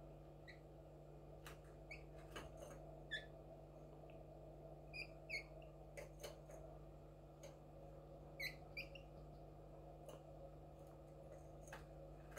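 Caged finch giving a few short, faint chirping call notes, about seven scattered through, without breaking into song, with light clicks as it hops about the cage; a steady low hum underneath.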